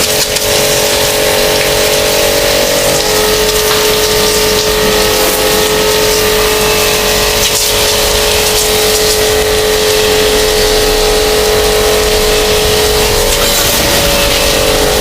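Pressure washer running steadily, its motor giving a constant whine under the loud hiss of the water jet, as used for cleaning an air conditioner's outdoor unit.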